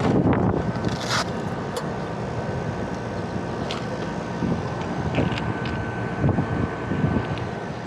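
Rooftop air-conditioning equipment running steadily with a faint constant whine, wind buffeting the microphone, and a few sharp metallic clicks and taps, the loudest about a second in.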